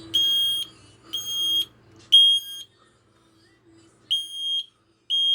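Smoke alarm sounding when its test button is pressed: loud half-second beeps of one high tone, three in a row about a second apart, a short pause, then the next group of three begins. This is the three-beep evacuation pattern, and it shows the alarm works.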